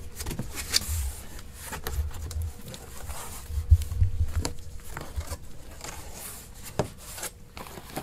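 Cardboard shipping-box flaps being pulled open and folded back, with rubbing and scraping of cardboard on cardboard, scattered sharp clicks, and a few dull knocks around the middle.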